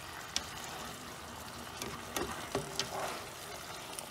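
Egg noodles, chicken and vegetables sizzling steadily in a non-stick pan while being tossed with kitchen tongs, the tongs clicking against the pan several times.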